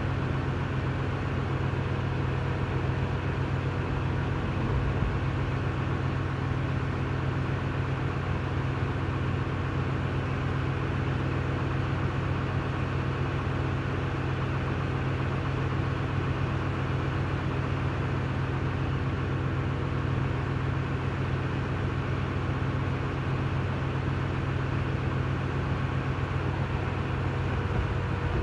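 A machine running steadily with an unchanging low drone and hum.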